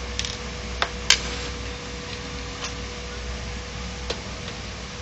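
Sharp clicks and knocks of a screwdriver and metal and plastic parts being handled as an HP LaserJet 1010 laser printer is taken apart, the loudest about a second in, over a steady low hum.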